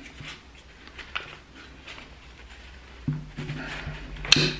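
Steel parts of a Vanagon CV joint being worked together by hand: faint metallic clicks and scrapes as the hub and cage slide up and down in the outer race, with a sharp metallic click near the end as the last piece goes into place.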